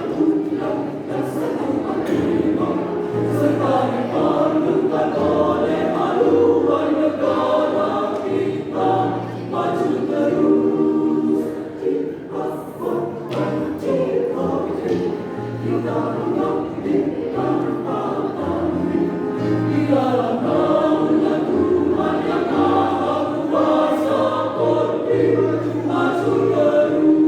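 A choir singing a song in several parts, with a steady low line of held notes shifting every second or two beneath the voices.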